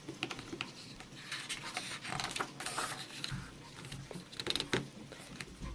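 Page of a picture book being turned: paper rustling and sliding, with scattered small crackles and clicks from an open fire.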